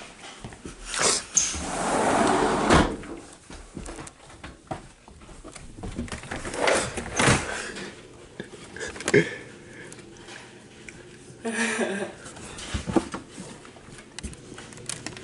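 Scattered knocks, bumps and rustling from a handheld phone camera being moved and brushed against things, with a longer rustle about two seconds in and a short indistinct voice near twelve seconds.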